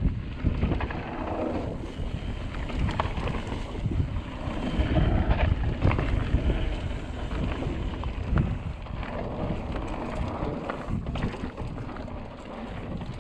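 Wind buffeting the microphone of a GoPro Hero 7 Black action camera on a moving mountain bike, a continuous uneven rumble that swells and eases, with scattered short knocks and rattles from the Trek Remedy bike and its tyres over the trail.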